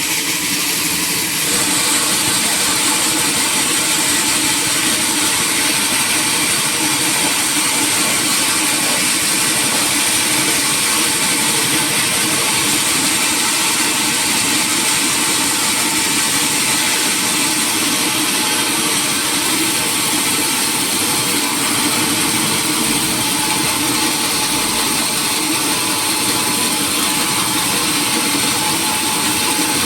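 Sawmill machinery running steadily, a loud even mechanical noise; a high whine joins in about a second and a half in.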